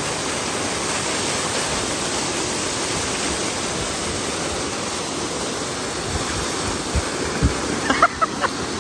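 River water rushing steadily in a strong current. A few low bumps come near the end.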